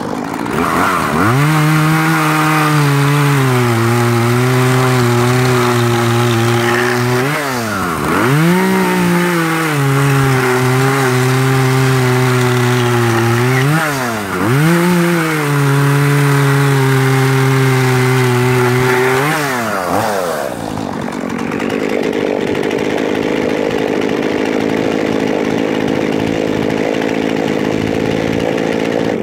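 Husqvarna 236 two-stroke chainsaw held at full throttle, cutting rounds off a small log in three long cuts, with the revs dropping briefly between cuts. For the last several seconds it runs at a steady idle.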